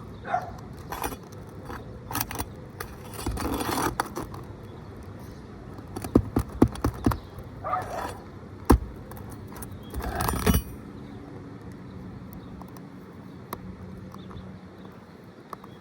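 A steel flat bar scraping and clinking against asphalt shingles and a roofing nail while the stuck nail is pried loose. Several sharp taps come about halfway through, then a single loud knock and a last spell of scraping, after which it goes quieter.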